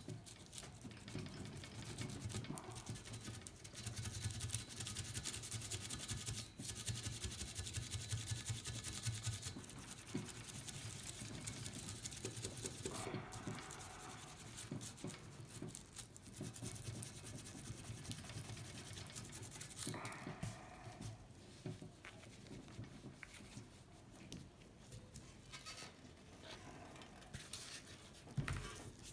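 A crumb of aluminium foil rubbed rapidly back and forth on the chromed steel of a bicycle frame: a continuous scratchy scrubbing, busiest in the first third.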